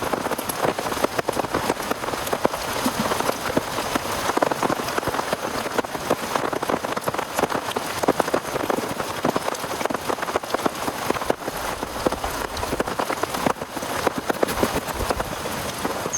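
Heavy rain falling steadily, a dense hiss packed with the close ticks of individual drops striking a surface.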